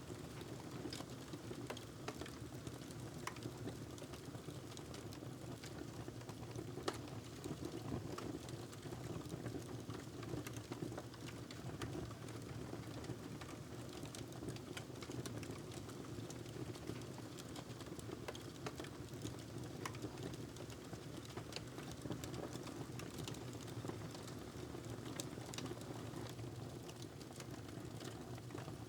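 Wood fire crackling in a fireplace: irregular small pops and crackles over a steady low rumble, with one louder pop about seven seconds in.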